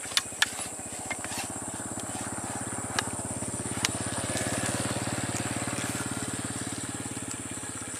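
A small engine runs with a fast, even putter that swells to about five seconds in and then eases off. A steady high insect drone sounds behind it, and there are a few sharp clicks near the start and around three to four seconds in.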